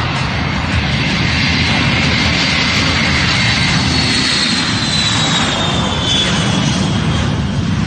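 Boeing E-3 Sentry's four TF33 turbofan jet engines passing in a flyby: a loud, steady jet rumble with a high whine that drops in pitch about midway as the aircraft goes by.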